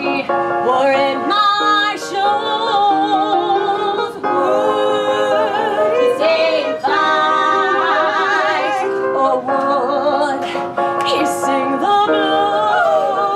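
Women singing with strong vibrato over instrumental backing music.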